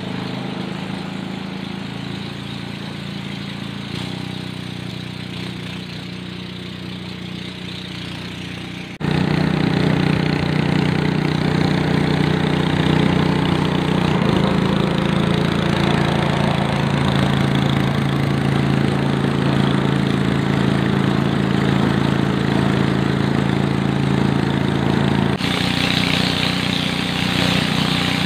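Small motorboat's engine running steadily at cruising speed, with the rush of water along the hull. It steps louder about nine seconds in, and more hiss of spray comes in near the end.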